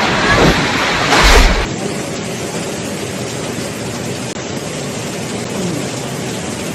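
Tornado wind and rain: a loud burst with a deep rumble about a second in, then a steady rushing noise.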